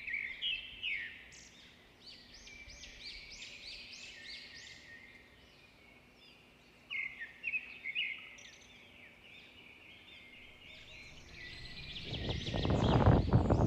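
Birds singing, a dense run of quick repeated chirps. Near the end a louder rushing, crackling noise swells up beneath them.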